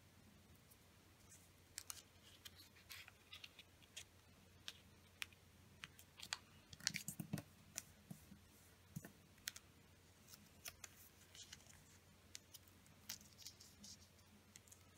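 Faint handling of a small sheet of origami paper as it is folded and creased by hand: scattered crisp crinkles, ticks and scrapes of paper and fingers on the tabletop, busiest about seven seconds in.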